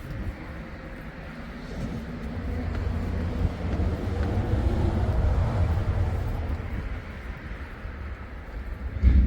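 A vehicle passes by: a low rumble that swells over a few seconds and fades away. A short thump comes near the end.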